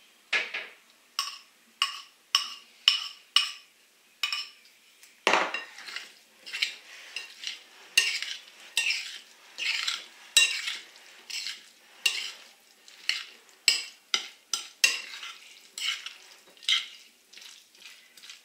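Metal spoon clinking and scraping in a glass bowl as sauce goes into a chopped salad and is stirred through it: separate clicks about once a second at first, then quicker, steady stirring strokes. One louder knock comes about five seconds in.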